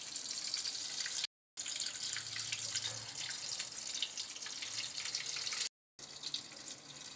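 Egg-coated potato and chana dal kababs sizzling as they shallow-fry in hot oil, a steady crackling hiss with a few light clicks of a metal spatula in the pan. The sound cuts out briefly twice.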